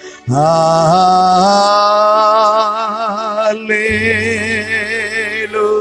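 Worship singing: a voice sings a long, drawn-out "Hallelujah" with vibrato, coming in about a quarter second in, over steady held musical tones.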